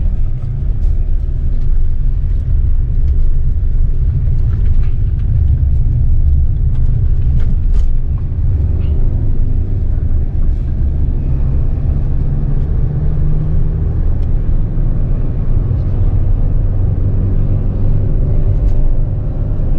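Steady low rumble of a car driving on an unpaved road, heard from inside the cabin: engine and tyre noise, with a few faint ticks.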